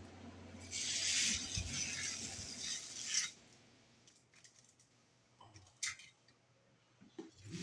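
Small Thomas & Friends toy trains being pushed by hand and handled on toy track: a rattling clatter for a couple of seconds, then quiet with a single sharp click about six seconds in.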